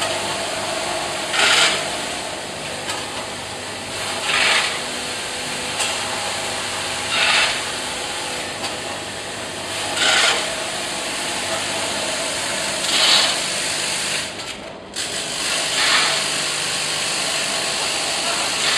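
Screw packaging machine running: a steady machine hum with a short rush of noise about every three seconds, one for each bag cycle as a counted batch of screws is bagged.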